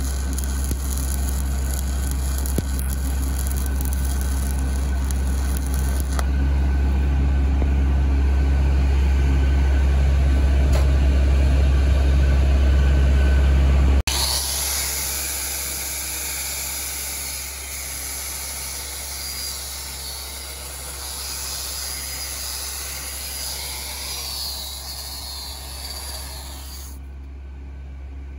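7018 stick-welding arc crackling and hissing over a steady low engine drone, cutting off abruptly about halfway; after that only a quieter steady hiss of background noise remains.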